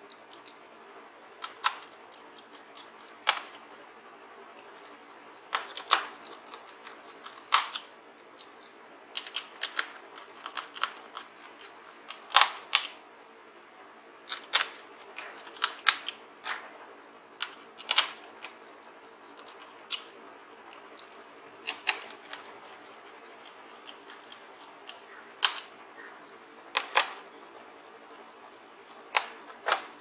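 Small hand screwdriver and screws clicking and tapping against a laptop's plastic bottom case as the screws are fastened: sharp, irregular clicks every second or two.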